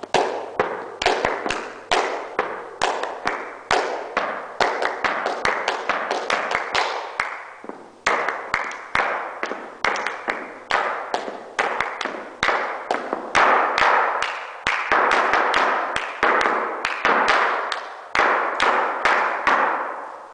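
Flamenco footwork (zapateado): the heels and toes of flamenco shoes striking a wooden dance board in a fast, uneven rhythm of sharp taps, several a second, each ringing on in the room's echo.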